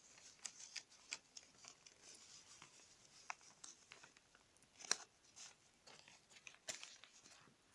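Paper being folded and creased by hand: faint scattered rustles and crinkles, with a sharper crackle about five seconds in and another near seven seconds.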